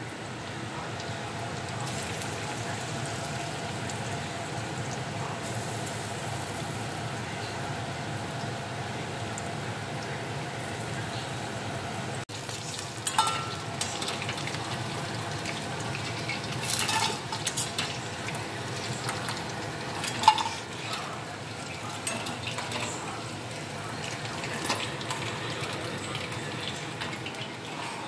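Marinated chicken sizzling in hot oil in a steel wok on a gas stove, a steady hiss. About twelve seconds in the sound cuts, and the sizzling goes on with metal clatter of a spoon and lid against the pan as the pieces are turned, one sharp clank near twenty seconds being the loudest.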